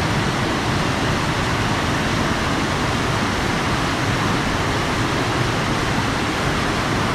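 Waterfall on a rain-swollen creek: a steady, loud rush of water that does not let up.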